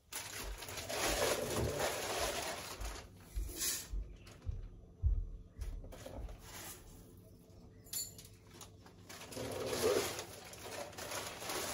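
Clear plastic bag of malted grain rustling and crinkling as it is handled, with the grain shifting inside and a few soft bumps.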